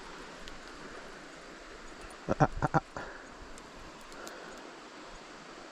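Steady rush of river water, broken about two and a half seconds in by a quick run of about four sharp knocks or slaps.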